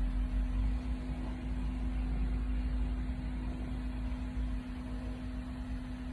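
Semi-truck's engine idling, heard inside the cab: a steady low rumble with a constant hum.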